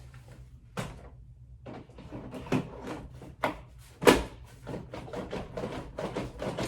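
Plastic parts of a Graco Modes Nest stroller clicking and knocking as they are handled and fitted, a few separate knocks with the sharpest about four seconds in, then a quicker run of clicks and rattles.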